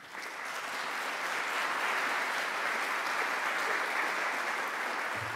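Audience applauding, building over the first second and easing off slightly near the end.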